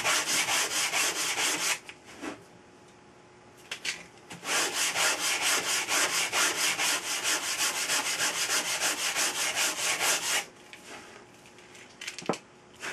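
A sanding block of 100-grit sandpaper wrapped on a flat wooden stick rubbing back and forth over a thin balsa wood blade, in quick strokes of about four a second, thinning the blade's trailing edge into an airfoil. The strokes stop for a couple of seconds a little way in, start again, then end, with a light knock near the end.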